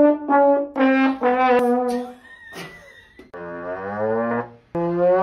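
Slide trombone blasted at close range: a few short loud notes stepping down in pitch, then, after a pause, a long note that slides upward and another upward slide near the end.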